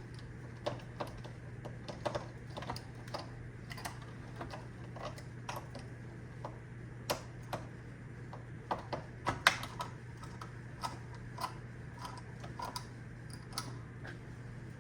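Irregular light clicks and taps of a small screwdriver turning and knocking against the screws and plastic housing of a Roomba 690's wheel module, about one or two a second, with a sharper click about nine and a half seconds in, over a steady low hum.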